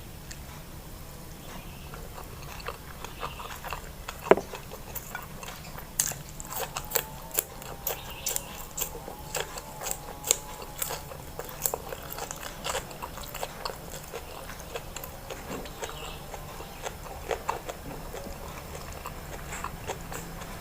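Close-miked mouth sounds of a person eating mutton fat curry: chewing and lip smacks. A sharp click comes about four seconds in, and a dense run of clicks and smacks follows from about six to thirteen seconds, sparser after that.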